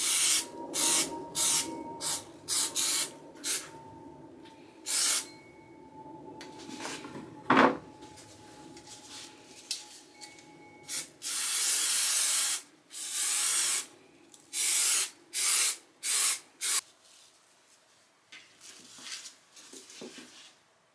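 Aerosol spray adhesive being sprayed onto a hardboard trim panel in many short hissing bursts, with two longer sprays past the middle, coating the panel before foam is laid on. A single sharp knock about seven and a half seconds in.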